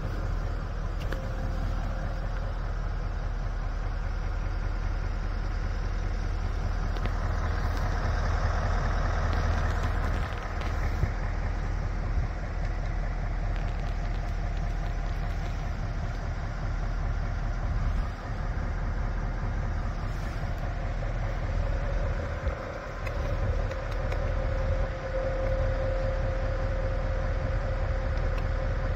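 A 590-horsepower Scania truck's diesel engine idling steadily, heard from inside the cab.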